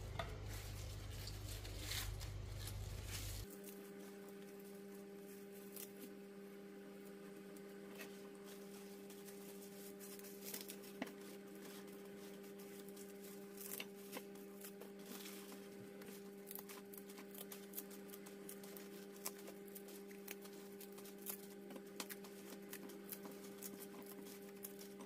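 Quiet rustling and small clicks of chard leaves being handled as their stalks are separated, over a steady electrical hum. A lower hum stops about three and a half seconds in, and a steady, higher hum carries on.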